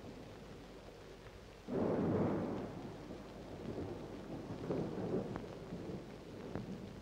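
Thunder breaks suddenly about two seconds in and rolls on, rumbling and swelling, over a steady rain.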